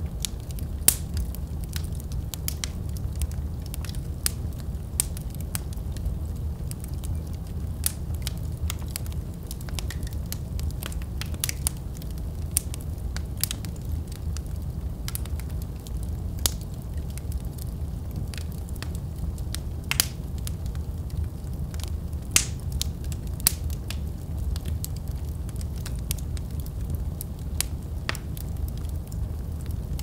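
Wood fire burning in a fireplace: irregular sharp crackles and pops from the burning logs over a steady low rumble.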